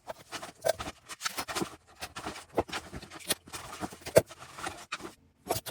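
A mailed package being opened by hand: irregular crinkling, tearing and clicking of packaging and paper.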